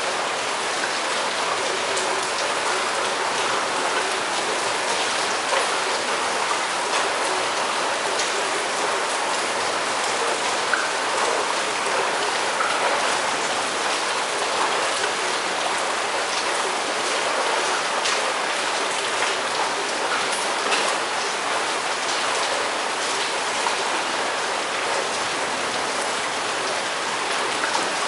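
Steady rain from a summer thunderstorm, falling and splashing on hard surfaces, with frequent small sharp drop impacts.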